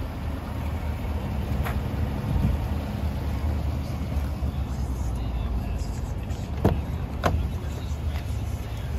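Chevrolet Silverado pickup idling with a steady low rumble. Near the end come two sharp clicks about half a second apart as the driver's door is unlatched and swung open.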